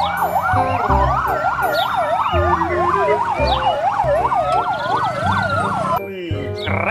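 Fire engine sirens: a fast yelp rising and falling about two to three times a second, overlapping a slower wail, cutting off about six seconds in.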